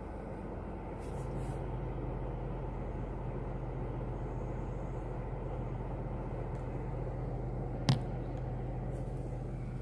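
A car's engine idling, heard inside the cabin: a steady low hum and rumble, with one sharp click about eight seconds in.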